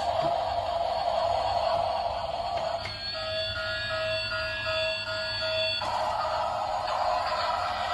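Battery-operated bump-and-go toy train playing its electronic sounds through a small tinny speaker as it rolls. About three seconds in the tune gives way to a steady buzzy tone with a repeating beep on top, like an alarm, which stops near six seconds.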